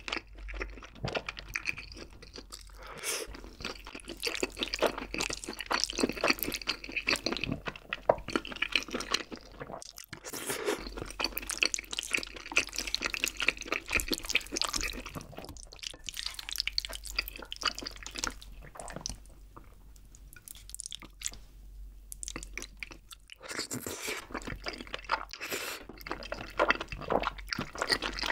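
Close-miked wet chewing and smacking of braised chicken and glass noodles coated in a creamy rosé sauce, with sticky squishy mouth sounds that come in stretches of a few seconds with short lulls between.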